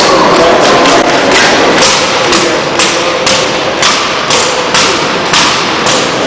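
A drill team stomping in unison, with sharp group stomps on a hard floor. They begin about a second in and keep an even beat of about two a second.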